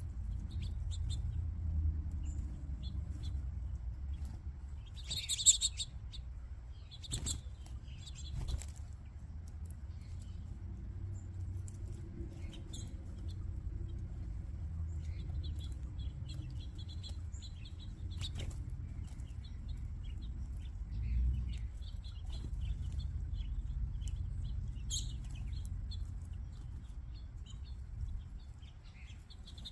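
A flock of small backyard birds chirping in short scattered calls, with several brief bursts of wings fluttering as birds take off or land, the loudest about five seconds in. A steady low rumble runs underneath.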